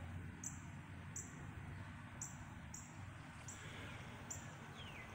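Faint bird calls: short, very high chirps repeated irregularly about once or twice a second, with one falling whistled note near the end.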